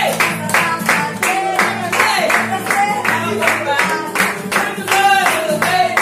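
A group singing together and clapping along in a steady beat, about four claps a second, with a guitar accompanying.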